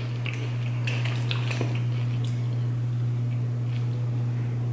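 A plastic drink bottle being uncapped and drunk from: a few faint clicks and swallowing sounds over a steady low hum.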